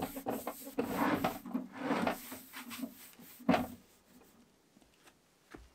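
A cloth rubbing over a wooden nesting box in a run of scrubbing strokes, with a louder knock about three and a half seconds in, after which it goes quiet.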